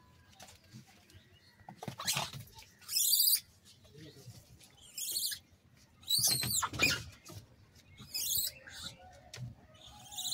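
Gray langurs fighting: a series of short, shrill screeches, about half a dozen, with a louder scuffle and screech about six seconds in.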